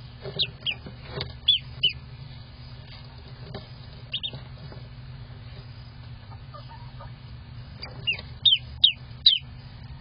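Newly hatched duckling peeping: short, high peeps that fall in pitch, coming in quick runs. There are several in the first two seconds, a pair around four seconds in, and the loudest run of about five near the end, over a low steady hum.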